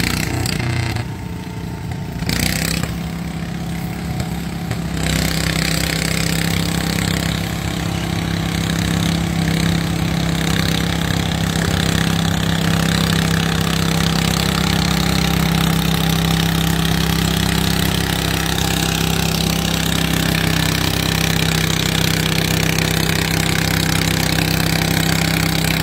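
Small garden tractor engine running at a constant speed. It settles into one even, steady pitch about two seconds in.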